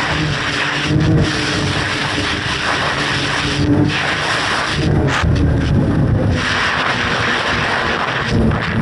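Snowmobile engine running while riding, its pitch rising and falling with the throttle, over the rush of wind on the microphone.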